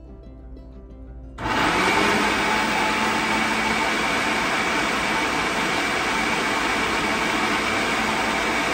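A countertop blender is switched on about a second and a half in and runs steadily, its motor whirring as it purées basil pesto.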